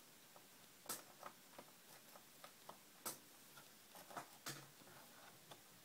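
Small screwdriver working a screw out of a laptop's plastic screen bezel: faint, irregular light clicks and ticks, about a dozen, a few sharper than the rest.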